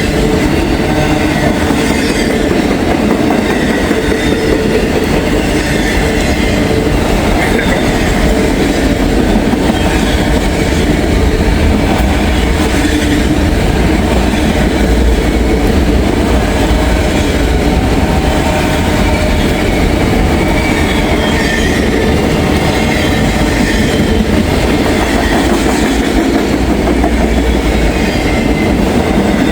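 Freight train cars rolling steadily past, the wheels rumbling and clattering on the rails.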